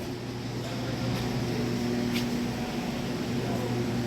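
Steady mechanical hum of shop machinery, a low drone with a few held tones over it, and a faint tick about two seconds in.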